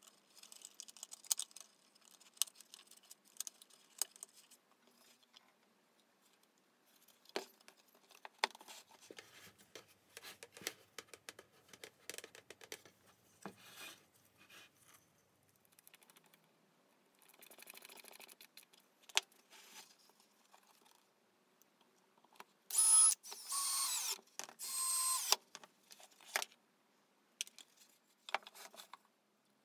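Handling noise on a workbench: light clicks, taps and rattles of cables and small wood pieces being fitted. Late on, a cordless drill runs in two short bursts, driving screws into the wood.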